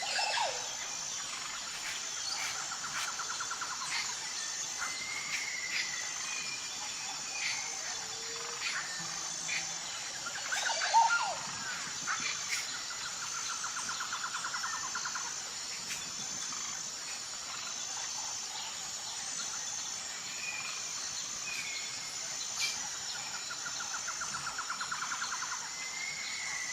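Wild birds calling and trilling over a steady high insect buzz, with a louder flurry of calls about eleven seconds in.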